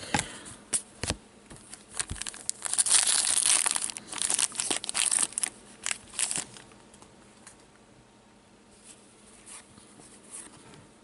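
Plastic trading-card pack wrapper being torn open and crinkled, loudest for a few seconds from about two and a half seconds in, with scattered sharp crackles. After that come only a few faint soft ticks of cards being handled.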